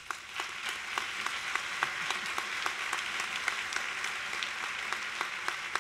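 Audience applause: many hands clapping in a dense, steady patter, with a few sharper individual claps standing out.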